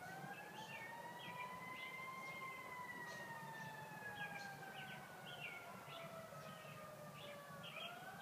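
Distant emergency-vehicle siren wailing slowly: it rises for about two seconds, falls gradually for about five, then starts rising again near the end. Short high chirping calls come and go throughout.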